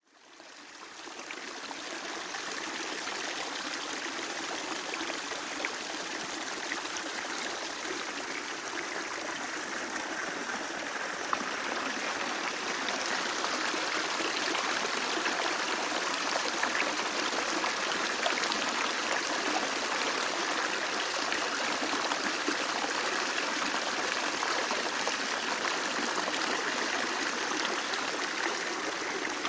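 Water running steadily through an automatic self-cleaning strainer's pipework and tank. The rushing fades in at the start and grows a little louder about twelve seconds in.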